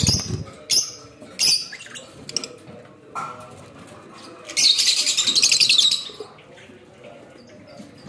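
Lovebirds calling: a few short, sharp chirps, then a loud, rapid chattering call lasting over a second, starting about four and a half seconds in.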